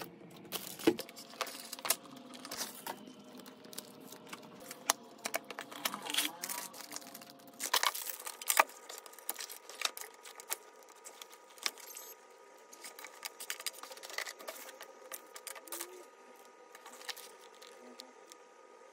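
Handling of a leather camera case and its strap: irregular clicks and taps, with the strap's metal clasps jingling and some plastic wrapping rustling.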